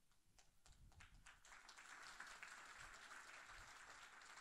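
Faint audience applause: a few scattered claps that build into steady clapping from a large crowd.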